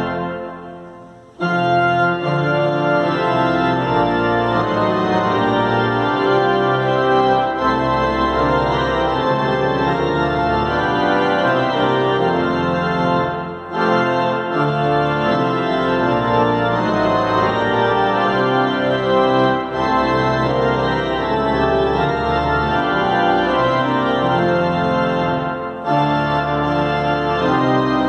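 Pipe organ playing a hymn in sustained chords. It cuts off at the very start and comes back in about a second and a half later, with two brief breaks between phrases further on.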